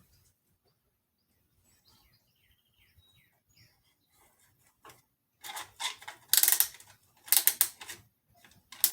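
Ratchet clicking in three quick runs over the last few seconds, winding a strap-type piston ring compressor around a piston.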